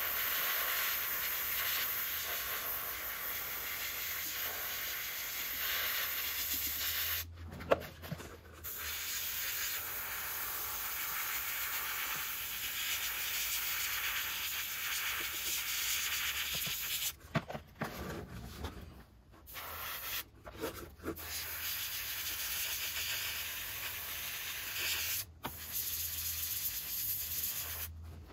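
Cheap Harbor Freight airbrush spraying paint: a steady hiss of air that stops and restarts several times as the trigger is let off and pressed again. There is one sharp click about eight seconds in, during a pause.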